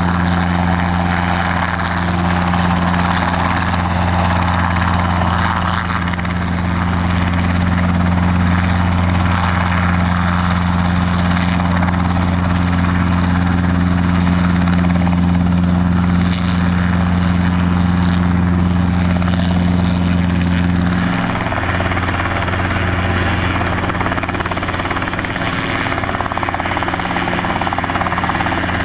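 Robinson R22 helicopter hovering and manoeuvring low, its piston engine and rotors making a steady, loud drone. The tone shifts slightly about two-thirds of the way through as the helicopter moves away.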